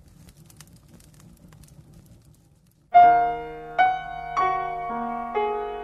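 A faint low rumble, then about halfway through a piano comes in loudly, playing slow struck notes about every half second over held lower tones, each left to ring.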